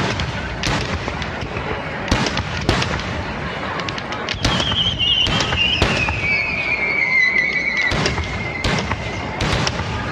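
Firework shells bursting in quick succession, about one bang a second. Through the middle a long wavering whistle falls slowly in pitch.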